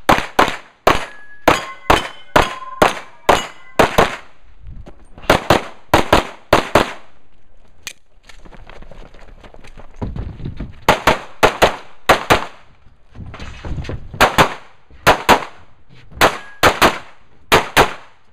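Open-division competition pistol fired in fast strings of pairs, with steel targets ringing when hit, most clearly after the first couple of seconds and again near the end. The shots stop for a few seconds around the middle while the shooter moves, then resume.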